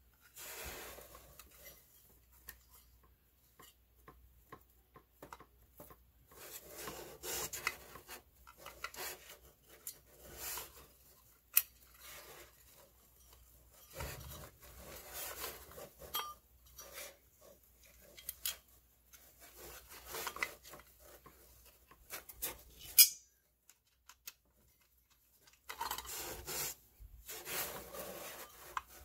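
Steel mounting plate of a new furnace draft inducer motor being handled and shifted against a concrete floor: on-and-off metal scraping and rubbing with scattered light clinks. A sharp metallic clink late on is the loudest sound.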